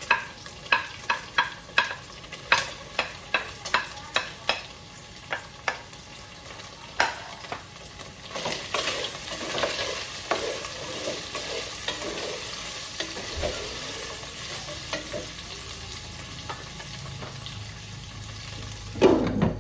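Chicken, onions and garlic frying in oil, stirred with a spoon that knocks against the pot about twice a second for the first several seconds, then a steady sizzle. A short loud sound comes near the end.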